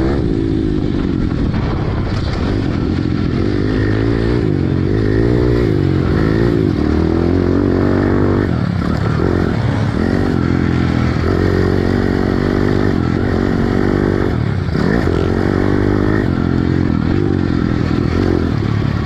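Pit bike engine revving up and down as it is ridden hard, its pitch rising and falling with throttle and gear changes. It drops off the throttle briefly a few times, around halfway through and again about three quarters of the way in.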